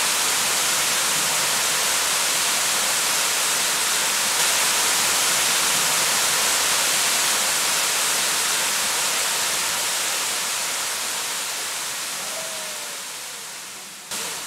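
Waterfall pouring into a rock pool: a steady, hissing rush of falling water that fades down over the last few seconds, with a brief louder step just before the end.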